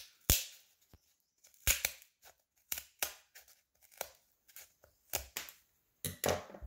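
Scissors snipping through the overhanging edge of epoxy-cured carbon fiber cloth laid over birch plywood: about a dozen short, crisp cuts, irregularly spaced, some in quick pairs.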